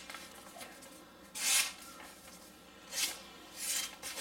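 Folding knife blade slicing through a sheet of paper in an edge-sharpness test: short hissing cuts a second or so apart, three in all, with a fourth beginning at the very end.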